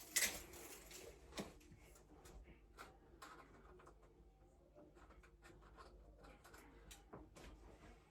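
Quiet handling noises: light scratching with a few sharp clicks and taps scattered through, the loudest just after the start.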